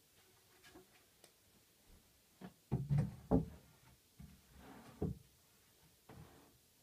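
Solid wood worktop being set down onto the top of a wooden dresser frame: a cluster of wooden knocks and thuds about three seconds in, then one more knock about five seconds in.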